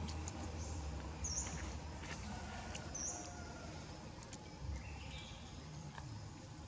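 Faint high-pitched animal chirps: a few short ones in the first three seconds and one rising chirp about five seconds in, over a low hum.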